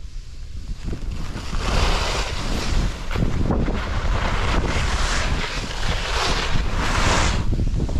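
Wind buffeting the microphone: a low rumble with rushing hiss that builds about a second and a half in and then comes in repeated swells.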